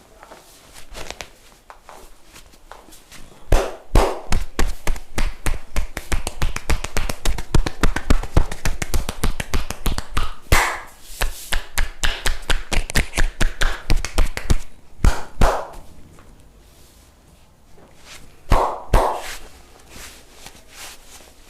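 A barber's hands rapidly tapping and slapping a person's body in a percussive massage, about four to five strikes a second for roughly eleven seconds. A few louder single strikes follow in pairs.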